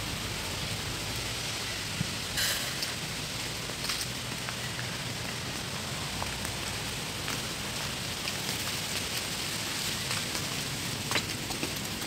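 Steady, even hiss of outdoor ambient noise, with a few faint clicks scattered through it.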